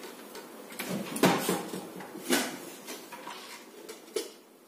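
A few knocks and clatters of kitchen things being handled: the loudest about a second in, another a little after two seconds, and a sharp single knock near the end.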